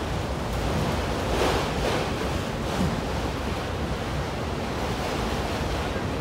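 Freight train of autorack cars rolling past: a steady rushing rumble of steel wheels on the rails, swelling a little around two seconds in.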